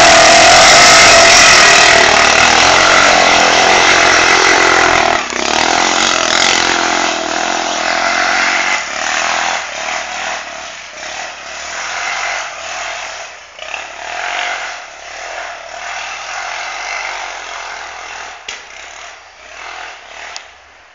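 ATV engine running at high revs, loud and steady for about five seconds, then quieter and uneven, rising and falling as it fades out by the end.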